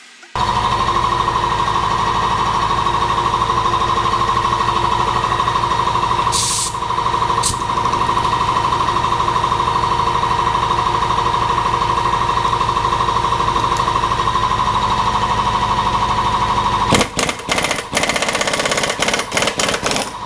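A pneumatic impact tool hammering rapidly in a long continuous run on an engine. It pauses briefly a few seconds in, then stops and restarts in short bursts near the end.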